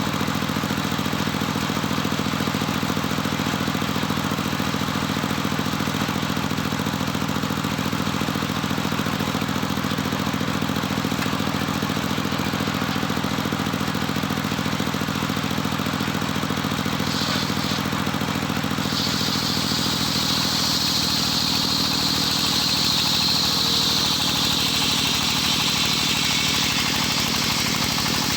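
Homemade circular-saw sawmill running steadily with a low machine hum. About seventeen seconds in, a high whine joins as the blade cuts into Jetos timber, its pitch sinking slowly toward the end.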